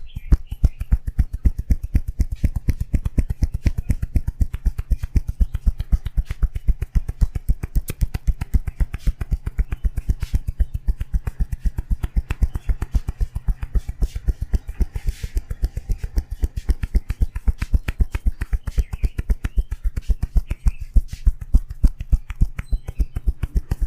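Hands tapping and slapping rapidly on a person's head in a percussive head massage: a fast, even run of dull hits, several a second, without a break.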